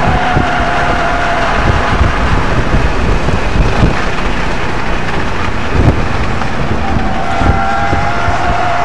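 Interior noise of a 2007 Audi RS 4 at track speed: its 4.2-litre V8 running under load with wind and tyre noise, heard inside the cabin. A few low thumps from the road surface break through, the strongest about six seconds in.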